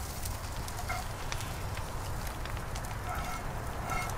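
Campfire coals crackling with scattered sharp clicks over a steady low rumble. A few short ringing clinks come near the end.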